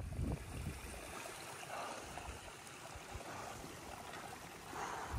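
Running water from a mountain stream, a steady rush with a few brief gurgling swells. In the first second, wind rumbles on the microphone.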